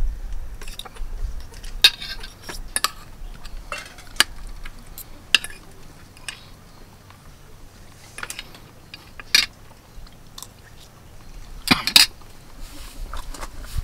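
Forks and knife clinking and scraping against metal camp plates as people eat, a scatter of sharp clinks with the loudest near the end.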